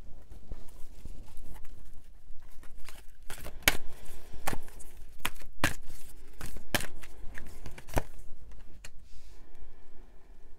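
A deck of tarot cards being shuffled and handled: an uneven rustling and flutter of cards with several sharp clicks, dying down about nine seconds in.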